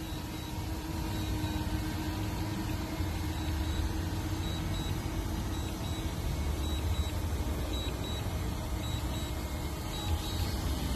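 Steady low rumble of outdoor noise with a faint steady hum over it.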